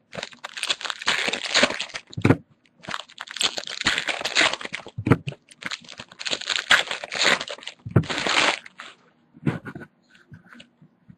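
Crinkling and tearing of a Panini Prizm trading-card pack wrapper being torn open and crumpled by hand, in several bursts over about nine seconds before it stops.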